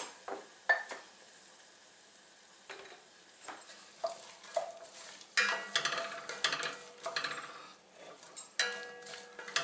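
Wooden spatula stirring and scraping chopped vegetables in a heavy enamelled pot, with light sizzling of the oil and scattered knocks of the spatula against the pot. The stirring gets busier about halfway through.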